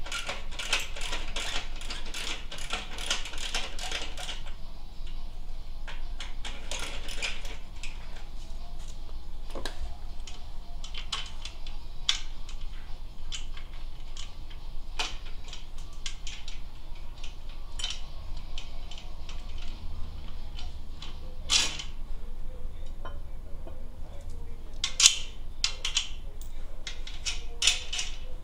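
Ratchet wrench clicking rapidly for about four seconds as the motorcycle muffler's mounting bolts are loosened, and again briefly a little later. After that, scattered metal clinks and knocks of tools and exhaust parts, with a sharper clank past the middle and another about three seconds later.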